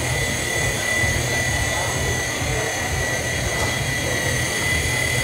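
Small electric remote-control toy helicopter flying, its motor a steady high whine that wavers slightly in pitch, over a low fluttering rumble.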